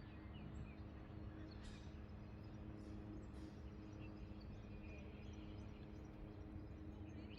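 Faint outdoor background noise with a steady low hum, broken by a few soft short ticks and faint chirps.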